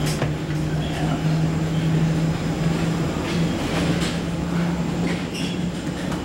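Steady machinery drone inside an airport jet bridge: a constant low humming tone over air-handling noise, with a few faint clicks from passengers shuffling forward.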